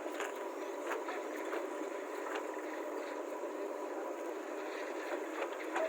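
Diesel engine of heavy earthmoving machinery running steadily, with a few faint knocks.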